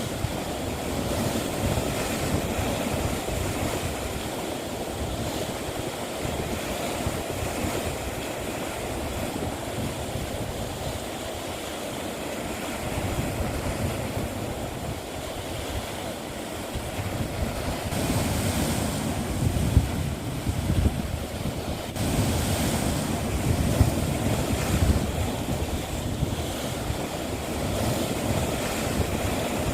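Sea waves washing and breaking on the shore, with wind noise on the microphone. The surf swells louder for several seconds past the middle.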